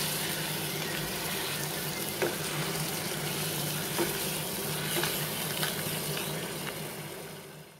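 Crab curry sizzling and bubbling in a pan on a gas burner, its water just added, while a wooden spatula stirs it and knocks against the pan a few times. The sizzling fades out near the end.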